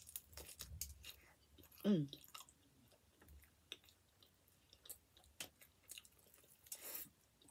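A person biting and chewing a slice of pizza with crust: soft, wet chewing with scattered small crunches and mouth clicks. A brief hum comes about two seconds in.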